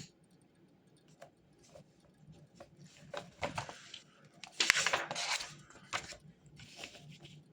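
Rustling and light clicks and knocks of objects being handled at a desk while studying. The loudest is a rustling burst about halfway through.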